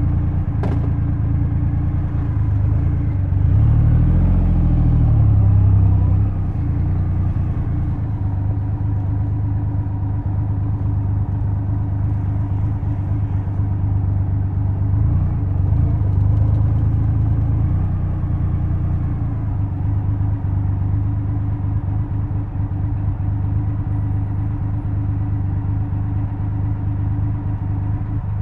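Triumph Rocket 3's 2,458 cc three-cylinder engine idling steadily just after start-up, with a brief swell in level and pitch about four to six seconds in.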